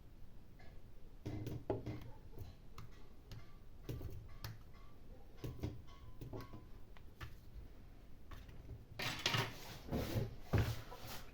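Small scattered clicks and taps of tools and tablet parts being handled on a workbench, with a louder scraping, rustling stretch about nine seconds in.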